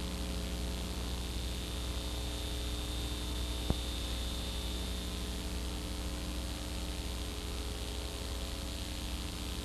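Steady electrical mains hum with hiss on an old camcorder videotape recording, with one sharp click a little over a third of the way in.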